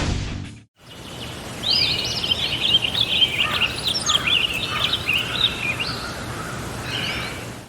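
A bird singing a rapid run of chirping notes for a few seconds, over a steady hiss of outdoor background noise, with a brief chirp again near the end. Music fades out just before.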